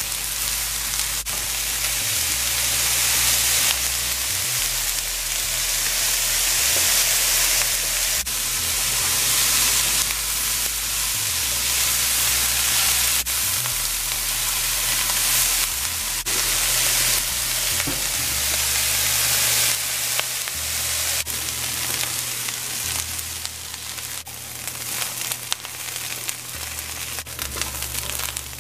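Sliced bitter melon (karela) with shrimp and onion frying in oil in a nonstick pan: a steady sizzle, with a wooden spatula stirring through it now and then. The sizzle gets quieter and more uneven in the last third as the karela browns.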